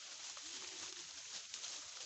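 A single short, low animal call, about half a second long, rising briefly at the start and then holding level, over a steady outdoor hiss.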